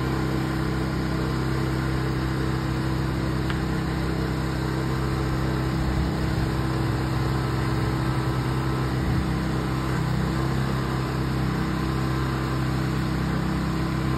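Pressure washer engine running steadily at constant speed, with the spray hiss of a 19-inch surface cleaner cleaning concrete.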